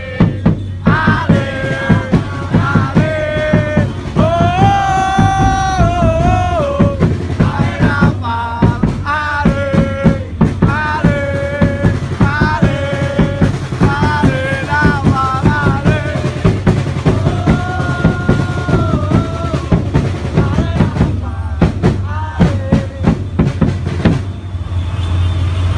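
Music: singing over a steady drum beat.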